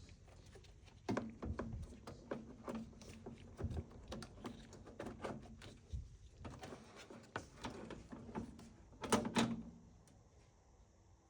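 Irregular clicks, taps and knocks of hands working on a microwave's parts and housing, with two sharp knocks close together near the end.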